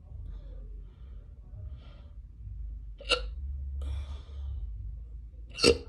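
A woman hiccuping twice, two sharp, short hiccups about two and a half seconds apart, with faint breathing between them.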